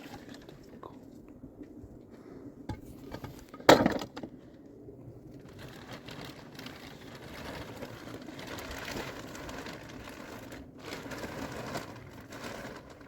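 A sharp knock or crack about four seconds in, louder than anything else, among scattered small clicks and stretches of rustling, handling noise.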